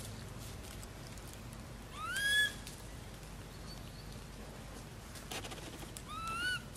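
Two short, high calls, each rising in pitch and then levelling off, about half a second long and some four seconds apart, over faint outdoor background.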